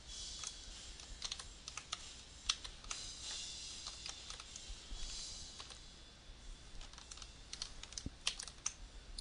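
Scattered, irregular clicks of a computer keyboard and mouse, over a faint high hiss.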